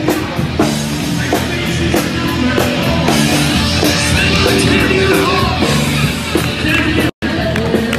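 Loud rock music with vocals and a driving beat. It drops out for an instant about seven seconds in.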